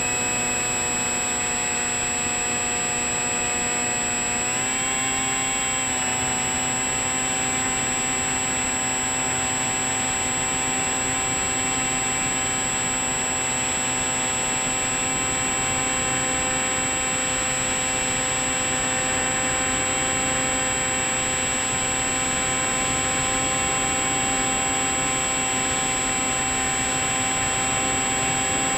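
Electric motor and pusher propeller of a Bixler 3 RC plane in flight, heard from the camera on board: a steady whine with rushing air, its pitch stepping up about five seconds in as the motor speeds up, then holding.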